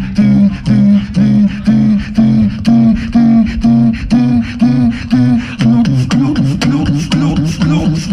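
Two beatboxers performing together through microphones: a pulsing, pitched vocal bass line at about two and a half beats a second, with sharp percussive clicks on top. Near the end the bass wobbles faster and the clicks come thicker.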